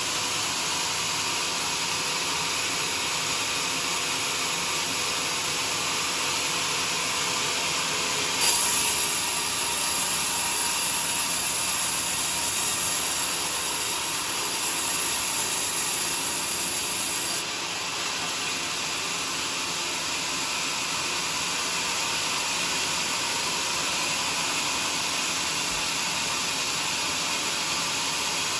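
Sawmill blade running and sawing through a joar log, a steady mechanical whir and hiss. About eight seconds in the sound turns suddenly louder and hissier, stays that way for about nine seconds, then drops back.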